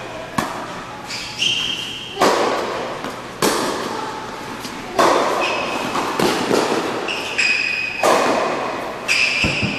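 Tennis rally on an indoor hard court: racquets striking the ball and the ball bouncing, sharp knocks every second or so that echo in the large hall. Short high squeaks come between the hits, typical of tennis shoes on the court surface.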